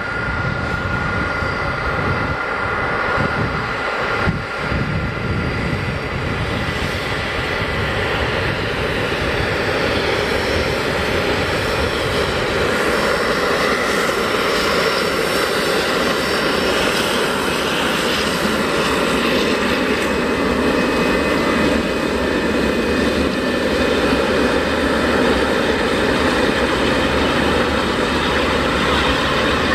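Boeing 747SP's four jet engines at taxi power as the airliner taxis past: a steady jet roar with a high whine of two held tones that fades after the first several seconds, the roar growing slightly louder.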